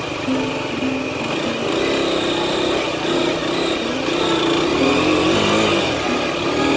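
Race GSR 125 motorcycle's 125 cc engine running while ridden slowly, its note rising and falling with the throttle.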